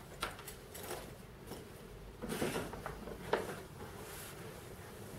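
Clothing rustling as it is handled and put on: soft, irregular rustles with a few short clicks, the loudest rustle about halfway through.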